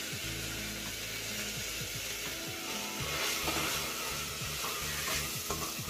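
Rice sizzling in the hot cumin-and-bay-leaf tempering in an aluminium pressure cooker, stirred with a metal slotted spoon.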